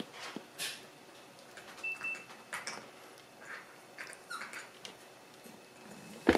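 Black Shiba Inu puppy scuffling and snuffling on a wooden floor as it tries to free its nose from a pinching crab, with a brief high squeak about two seconds in and a few faint whimper-like chirps. A sharp knock just before the end is the loudest sound.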